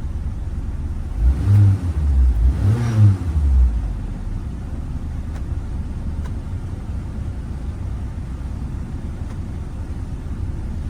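Car engine idling with a steady low rumble, revved up and back down twice in quick succession near the start, then settling back to idle.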